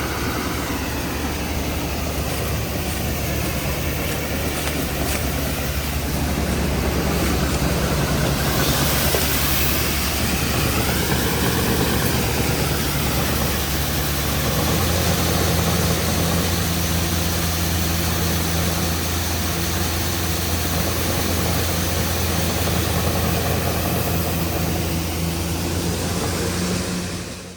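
Large farm-machinery diesel engine running steadily, with its pitch stepping up slightly about halfway through; it fades out at the very end.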